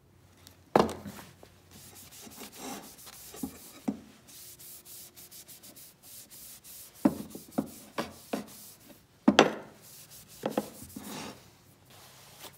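A rag rubbed in strokes along a scorched wooden handle, with a few sharp knocks, the loudest about a second in and about nine seconds in.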